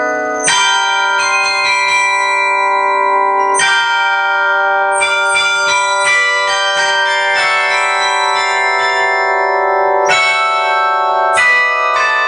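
Carillon bells playing a pop melody, struck notes ringing on and overlapping, with a chord of several bells struck together now and then.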